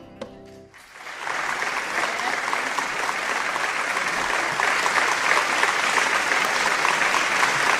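The band's last notes die away, and about a second in an audience starts applauding; the clapping builds quickly and then holds steady.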